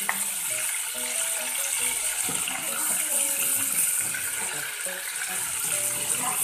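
Butter melting and sizzling in a stainless steel saucepan over a gas burner, a steady high hiss, while a spoon stirs it; a spoon clicks once against the pot right at the start.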